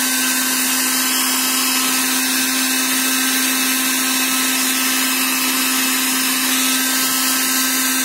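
Philips hand-held hair dryer running steadily: a hum from its motor over a loud hiss of blown air.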